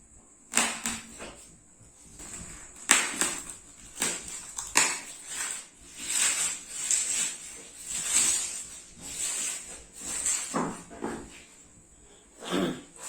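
Packaging of a boxed speaker pair being handled and opened: irregular rustling and scraping, with a few sharp knocks.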